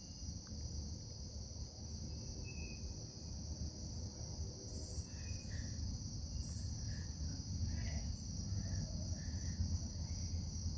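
Steady, high-pitched insect chorus with a low rumble underneath, a few faint short chirps and two brief high hisses about five and six and a half seconds in.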